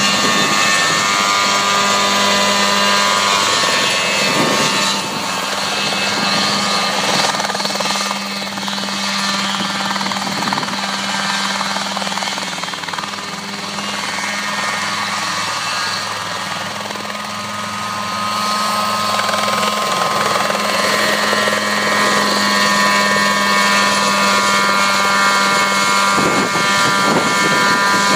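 Mosquito ultralight helicopter's engine and rotor running steadily as it hovers and flies low. It grows quieter a few seconds in as it moves farther off, then louder again near the end as it comes back close.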